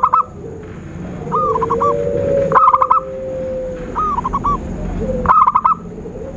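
Zebra doves calling: five short bursts of quick, rolling coo notes about every second and a half, over a long steady lower tone.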